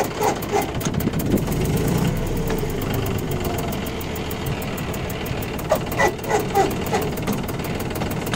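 John Deere 5310 tractor's three-cylinder diesel engine running steadily, driving the hydraulics while the reversible plough is turned over. A few short, sharper sounds rise above it about six seconds in.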